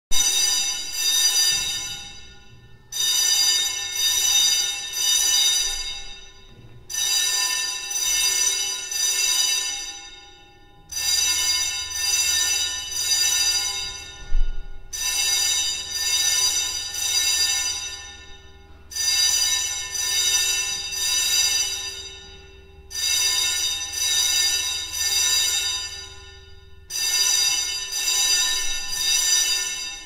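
Fire alarm bell ringing in a repeating pattern of three rings and a pause, every four seconds. This is the temporal-three evacuation signal.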